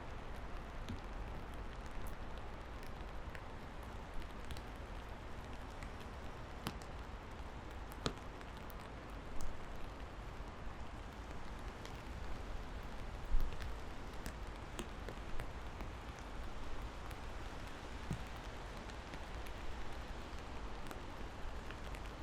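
Steady rain falling, with individual drops striking close by in scattered sharp ticks, a few louder ones about nine and thirteen seconds in.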